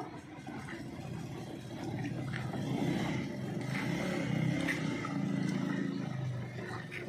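Wet cement being stirred by hand with a wooden stick in a plastic bucket, with scattered scraping clicks. Under it, a low engine rumble swells about two seconds in and eases off near the end.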